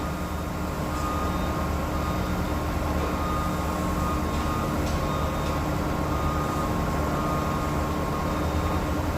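Heavy construction machinery running steadily: a constant low rumble with a steady high tone over it.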